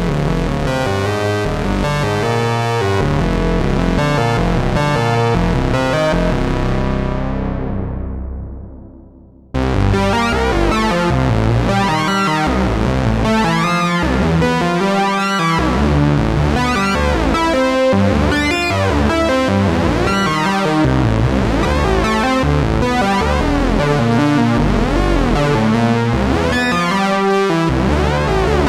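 Moog Matriarch semi-modular analog synthesizer playing a sequenced melodic patch. About eight seconds in, the sound grows darker and fades almost away. Just under ten seconds in, a new patch starts abruptly, its notes sweeping brighter and darker over and over.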